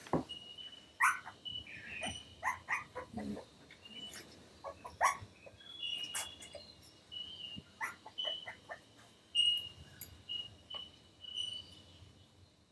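Three-week-old toy cavoodle (cavapoo) puppies squeaking and whimpering in many short, high calls, some of them sliding in pitch. A short high chirp repeats faintly behind them.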